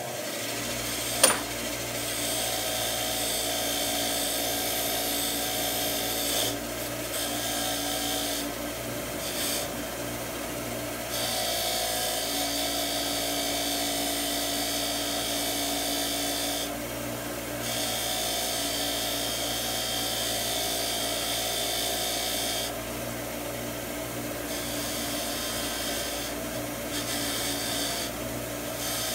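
Bench grinder's wire wheel running steadily, with a high scratchy hiss each time a steel screw is held against it, broken by short pauses as the part is lifted off and turned. One sharp click about a second in.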